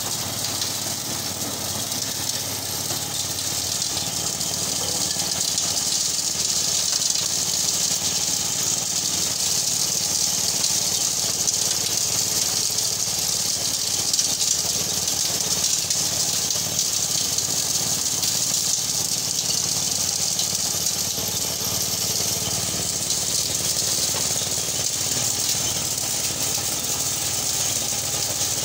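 Engine-driven maize sheller-thresher running steadily: the small petrol engine's hum under a continuous rattling hiss from the shelling drum, with no let-up.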